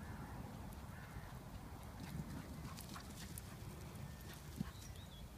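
Low wind rumble on the phone's microphone in an open field, with a few faint ticks and a soft thump about four and a half seconds in.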